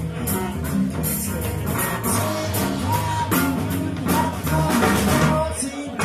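Live rock band playing: electric guitar, electric bass and drum kit with cymbal strokes, in a steady groove.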